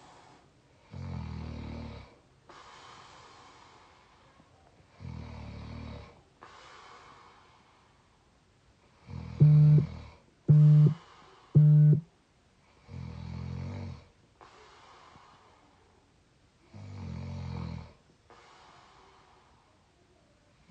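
A young adult snoring in heavy sleep, with a pitched, buzzy snore about every four seconds and soft breathing between snores. Midway, one snore breaks into three short, loud, squeaky snorts.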